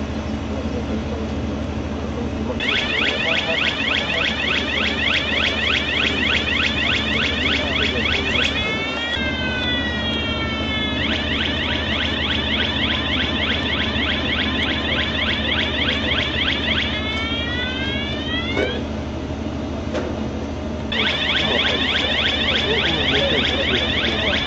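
Electronic warning siren on a bridge-girder launching gantry, cycling through tones: a fast warble starts about two and a half seconds in, switches to slower rising whoops twice, breaks off for about two seconds, then the warble resumes near the end. A steady low machinery hum runs underneath.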